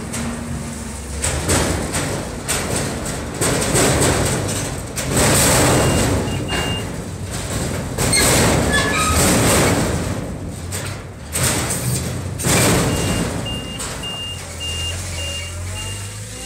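Forklift engine running and revving in repeated surges while it works a stack of steel containers. Its high reversing beeper sounds in short beeps about six seconds in and again from about thirteen seconds on.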